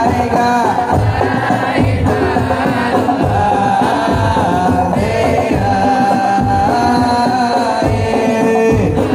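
Sholawat sung to a wavering melody over hand-struck frame drums beating a steady rhythm.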